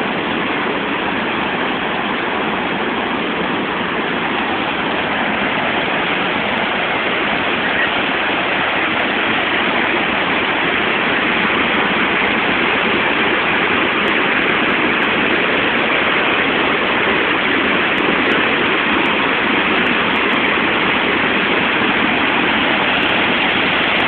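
Steady rushing roar of a large waterfall, Misol-Ha's drop of more than 25 metres, its water crashing into the pool below.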